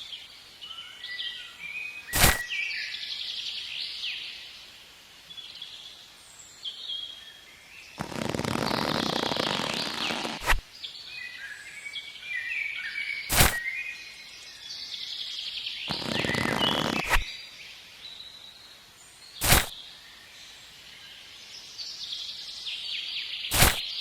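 Birds chirping and calling in short bursts. A sharp click comes every few seconds, six in all, and a hiss swells twice, once near the middle and once later on.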